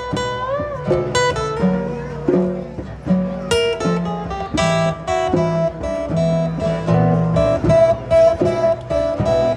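Acoustic guitar played solo, picked notes over low bass notes, with a repeated high note from about halfway through.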